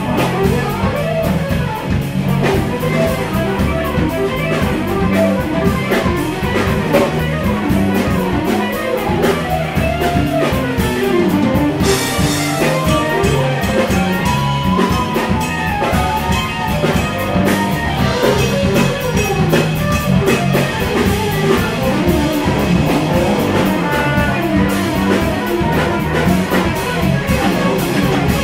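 A live jazz fusion band playing: electric guitar, electric bass, keyboards and drum kit together at a steady, busy groove.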